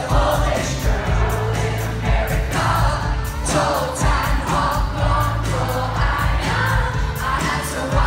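Live pop band and singer performing loudly, a sung melody over a steady beat and heavy bass, heard from among the audience through a phone microphone.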